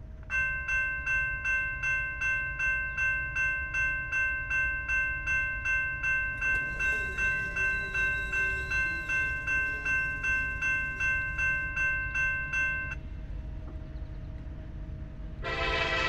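Railroad crossing bell ringing in a quick even rhythm, about two strikes a second, until it stops about 13 seconds in. Near the end the approaching freight's diesel locomotive horn sounds, loud and chord-like, the loudest thing here.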